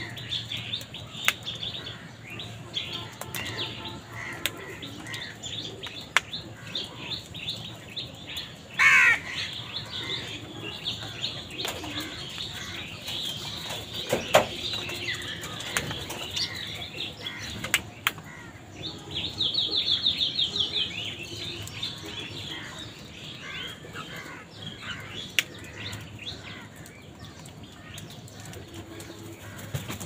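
House crows squabbling over food, with caws, wing flaps and a busy background of chirps from smaller birds such as mynas. A loud call comes about nine seconds in, and a fast chattering run comes around twenty seconds.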